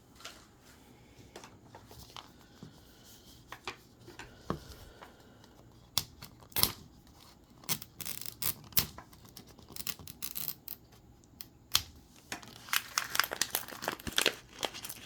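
Thin plastic wrappers being torn open and crinkled by hand, in scattered crackling bursts with sharp clicks, growing busier near the end.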